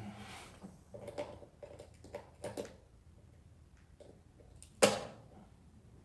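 Jumper cable clamps and battery terminal connections being handled and tightened: a few small clicks and knocks, then one sharp metallic snap about five seconds in.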